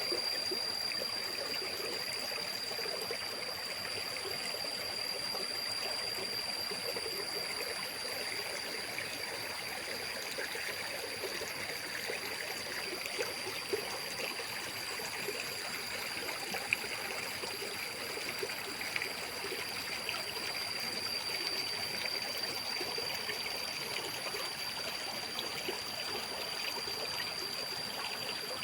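Mountain stream flowing and trickling steadily, with a steady high-pitched whine held over it and a couple of small ticks near the middle.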